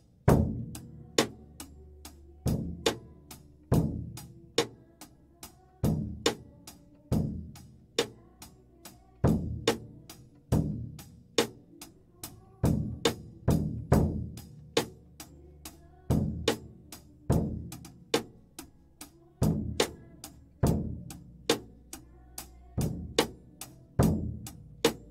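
Ludwig drum kit playing a steady beat: bass drum and snare hits with cymbal strokes, repeating through the passage.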